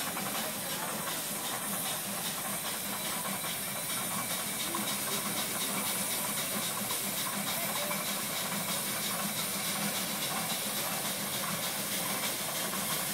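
Steam crane working a clamshell bucket: a steady hiss of steam with a faint, fast, even beat from its engine as the bucket bites into the dirt and is hoisted.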